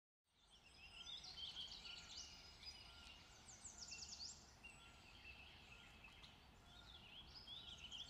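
Faint forest birdsong: several small birds chirping and trilling in quick, high notes, over a low background hum.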